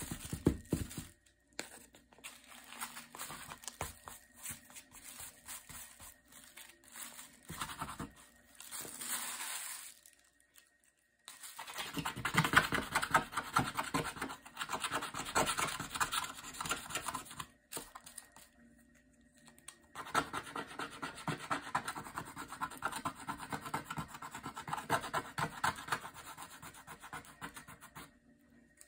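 Rapid scratching and rubbing strokes of a small pad scrubbing a blue coating off a printed picture board, in long bursts with short pauses, and the plastic sheet underneath crinkling now and then.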